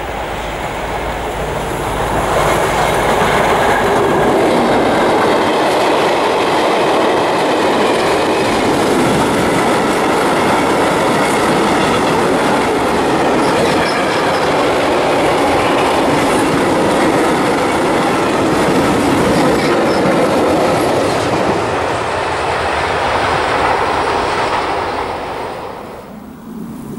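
A freight train hauled by a diesel locomotive passes close by: a low engine hum as the locomotive approaches, then a loud steady rumble and clatter of wagon wheels on the rails, with some thin high wheel squeals in the middle. The sound dies away near the end as the last wagons pass.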